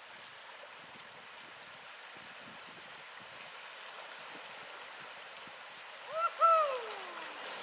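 Shallow stream running steadily over a rocky riffle. About six seconds in, a loud short call close by: two quick notes, then a longer one that slides down in pitch.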